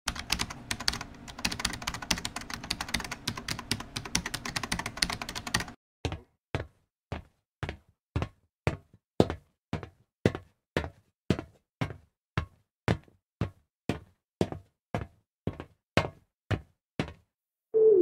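A dense run of rapid clicks for about six seconds, then sharp single ticks evenly spaced at about two a second. Music starts just before the end.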